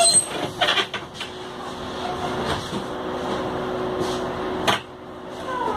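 Inside a city bus standing with its engine idling: a steady hum with the rattle and clatter of the bus's fittings. There are a few knocks in the first second and one sharp knock near the end.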